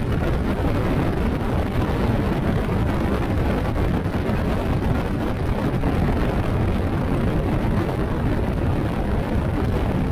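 Steady wind rush and low rumble on the microphone of a moving motorcycle, even in level throughout.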